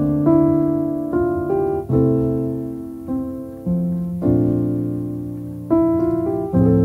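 Slow instrumental piano music: soft chords struck about once a second, each left to ring and fade before the next.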